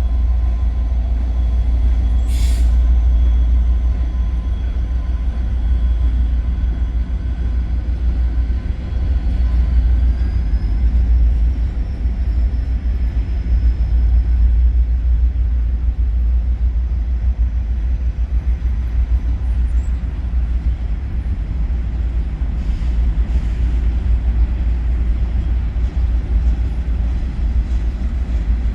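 Freight train rolling past, a steady low rumble of the cars on the rails.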